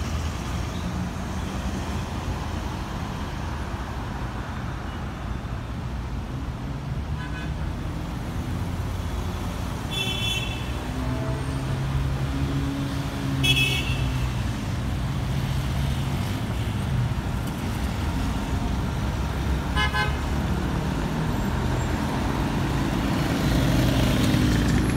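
Road traffic at a busy intersection: car engines running in a steady rumble, broken by four short car-horn toots, the loudest about halfway through. A motorcycle engine grows louder near the end.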